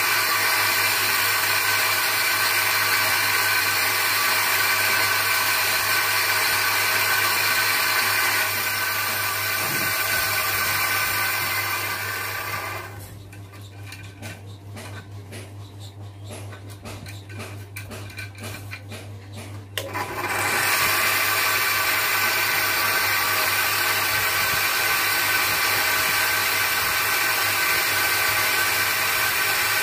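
Bench grinder motor running with a sanding wheel, a synthetic cat's-eye stone on a dop stick pressed against it for sanding: a steady whine over a hiss. About twelve seconds in it goes quieter for some seven seconds, with light clicks and taps, then runs at full level again.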